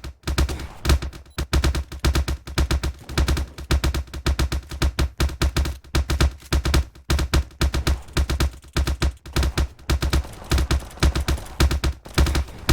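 A rapid, irregular run of sharp clap-like cracks, several a second, each with a heavy low thud, broken by brief pauses; the source is unidentified.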